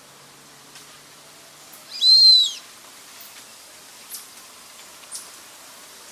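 Brazilian teal giving one loud, high whistled call, arched in pitch and lasting about half a second, about two seconds in. Two faint short high ticks follow later.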